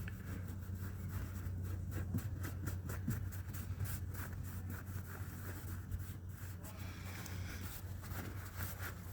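Rag scrubbing the bare metal with mineral spirits: quick, irregular rubbing strokes over a steady low hum.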